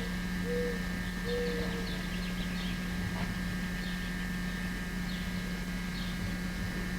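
Dove cooing: a few short, low hooting notes in the first two seconds, with faint high chirps of small birds scattered throughout, over a steady low hum.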